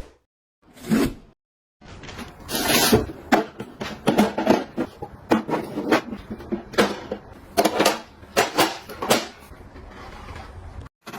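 Household objects being handled: a quick run of knocks, clicks and scrapes, like containers, lids or doors being opened, set down and shut.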